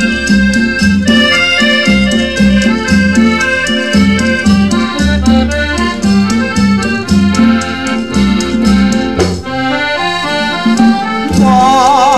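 Instrumental introduction of a Thai luk thung song played from a mono vinyl record: a band melody over a steady, regular bass beat. A wavering held note comes in near the end.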